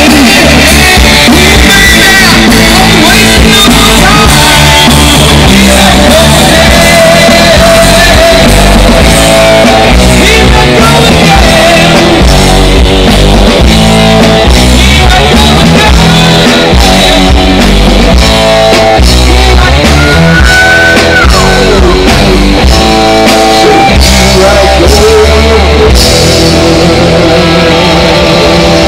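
Live rock band playing loud through a PA: a singer over electric guitars, bass and drums.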